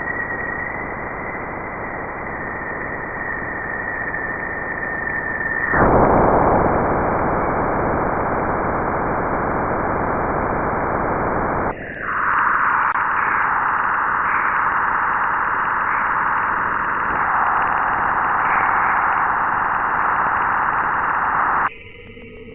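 Steady static-like hiss in three segments that change abruptly. The first carries a steady high whistle; the last has a louder, fuller band of hiss in the middle range. These are spacecraft radio and plasma-wave recordings turned into sound.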